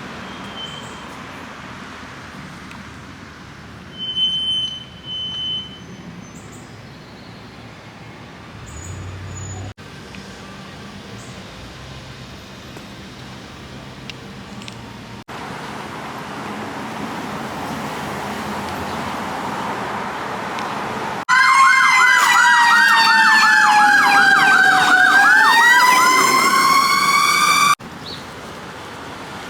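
Emergency vehicle siren for about six seconds in the second half: a fast warbling yelp sounding over a slower wail that falls and then rises again, starting and stopping abruptly. Before it, only low background noise broken by sudden cuts, with a short high beep about four seconds in.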